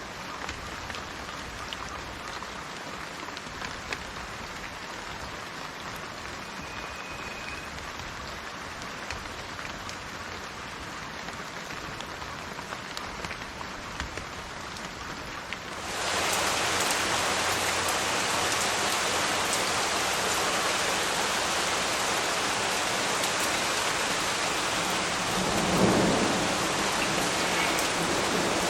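Rain falling, lighter at first with scattered drops ticking, then changing abruptly about halfway through to a heavier, louder downpour. Near the end a low rumble of thunder swells and fades under the rain.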